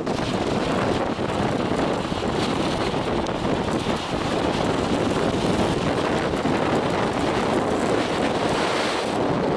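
Strong wind buffeting the microphone, a loud, steady rushing noise.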